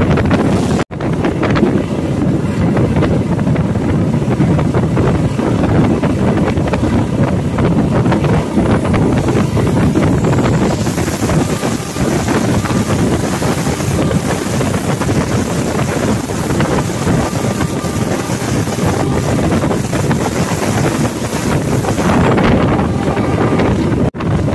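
Blambangan Ekspres passenger train running at speed: a steady rumble of wheels on the track and air rushing past the microphone. The sound cuts out briefly about a second in and again just before the end.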